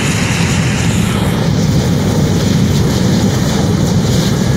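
1956 Ford pickup's engine running loud and steady, with a rapid crackle through the exhaust.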